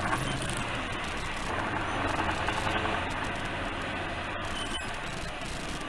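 Steady engine hum and road noise heard from inside a moving vehicle's cab.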